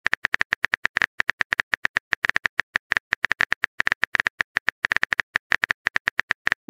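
Typing sound effect of a chat-story app: a rapid, even train of keyboard-like clicks, about eight a second, while the next message is being typed.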